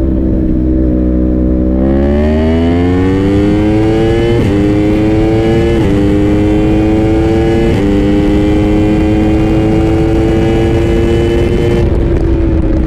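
Yamaha R1M's crossplane inline-four with a Yoshimura exhaust accelerating hard through the gears. The engine note climbs steadily from about two seconds in, with quick upshifts about four and a half, six and eight seconds in, each a short dip before it climbs again. It then holds high and eases slightly near the end.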